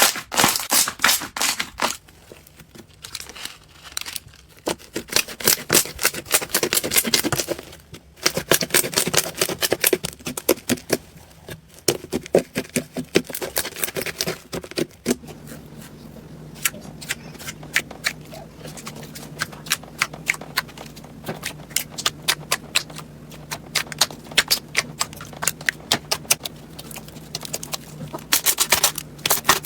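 Slime being squeezed and worked by hand, giving rapid crackling clicks and small pops in spells, with a low steady hum joining about halfway through.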